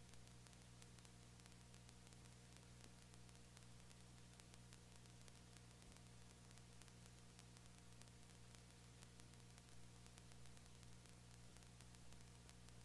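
Near silence: a faint steady hum and hiss.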